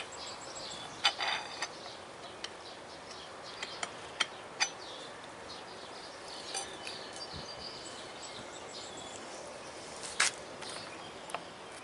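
Scattered sharp metallic clinks and taps as steel hydraulic cylinder parts are handled: the piston being worked off the threaded rod. The loudest clinks come about a second in and again near the end.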